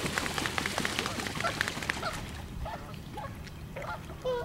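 A quick run of clicks for about two seconds, then a few short bird calls.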